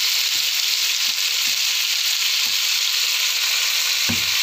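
Shrimp frying in hot oil in a wok, a steady loud sizzle as sweet soy sauce is poured into the pan, with a few soft knocks of the metal spatula and a firmer one near the end.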